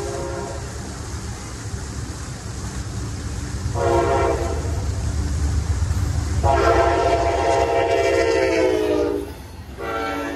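Horn of an approaching Amtrak GE P42DC diesel locomotive sounding the grade-crossing pattern. A long blast ends about half a second in, a short blast comes about four seconds in, then a long blast of nearly three seconds, and another blast begins near the end. Under the horn runs the low rumble of the train, growing louder as it nears.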